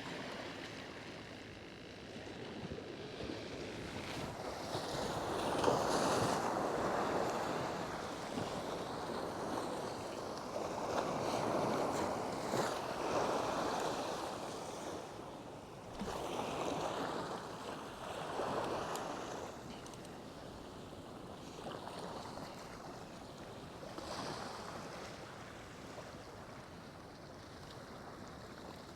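Waves washing in at the jetty, the noise swelling and easing every few seconds.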